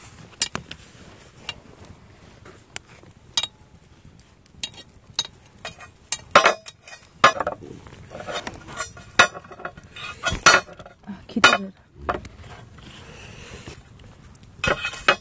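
Metal spit rod and binding wire clinking and knocking against a hard coated tray as a spit-roasted pork belly is laid down and handled. The sharp clicks and clanks come irregularly and are busiest in the middle of the stretch.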